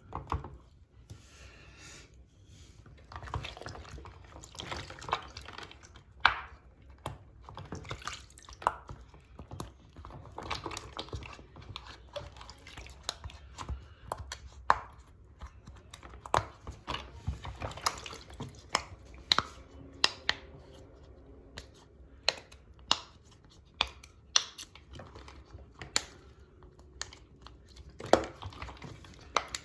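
Plastic fidget toys being washed and handled in water: sloshing and dripping, with irregular sharp clicks and pops, sometimes several a second.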